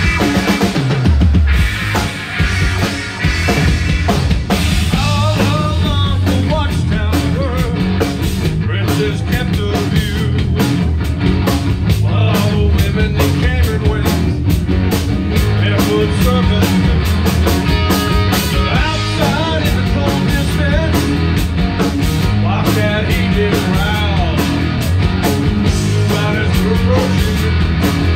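Live rock band playing a song: a Tama drum kit keeping a steady beat, with an electric bass line and an electric guitar on top.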